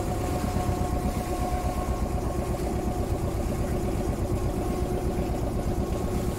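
Small fishing boat's engine running steadily under way, a fast even chugging with a steady hum above it.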